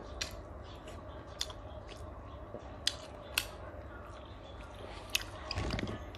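Close-up chewing of a mouthful of grilled chicken, with a handful of sharp crunchy mouth clicks spaced roughly a second apart and a brief low rumble near the end.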